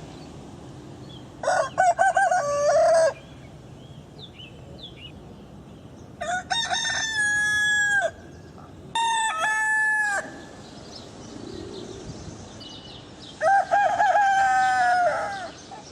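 Four rooster crows, each a loud pitched call lasting one to two seconds, with a few seconds of quieter background between them.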